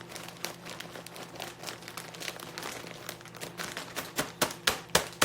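Plastic wrapping crinkling and rustling as it is handled, typical of sliced cheese being unwrapped. Five or six loud sharp clacks come from about four seconds in to the end.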